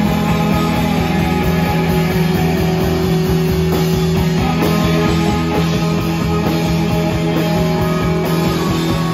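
Live rock band playing: electric guitars with long held notes over a drum kit and cymbals.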